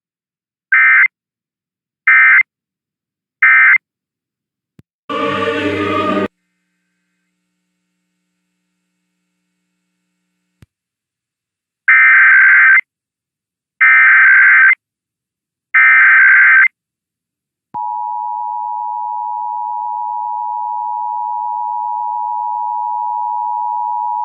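Emergency Alert System tones: three short SAME digital data bursts (the end-of-message code closing a test), a brief noisy burst about five seconds in, then after a gap three longer SAME header bursts announcing the next test. From about eighteen seconds in, the steady two-tone EAS attention signal sounds.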